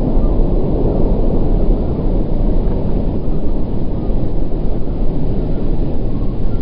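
Boeing 777 airliner's twin GE90 turbofan engines at approach power as it flares just above the runway, a loud, steady low rumble.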